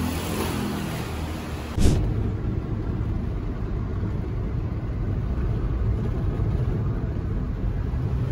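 Steady low rumble of road and engine noise inside a moving vehicle's cabin. A sharp click about two seconds in marks the switch from quieter background to the driving noise.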